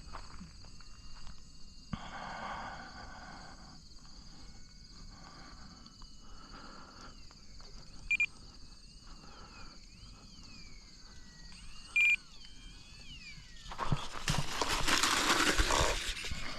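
Electric RC plane flying at a distance, its motor a faint steady high whine, with two short beeps about four seconds apart. Near the end comes a loud rush of noise lasting about three seconds.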